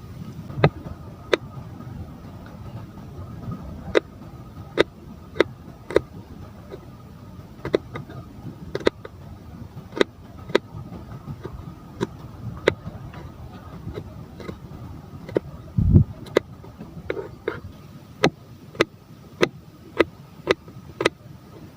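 Kitchen knife chopping vegetables on a cutting board: sharp chops every half second to second, quickening to about two a second near the end, with one heavier thump about two-thirds of the way through, over a steady low rumble.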